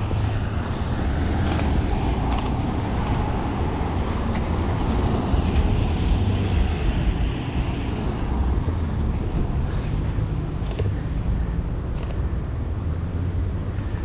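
Outdoor city street ambience: a steady low rumble of traffic and wind on the microphone, with a few short clicks.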